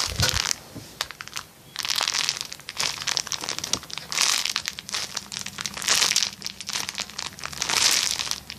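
Crinkling and crumpling of a squishy toy being squeezed and handled in the hands, in repeated bursts about once a second.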